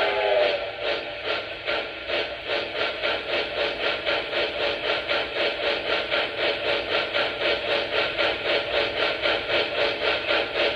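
Lionel A-5 steam switcher model's onboard sound system: a steam whistle cuts off about half a second in, then steady steam chuffing at about four chuffs a second.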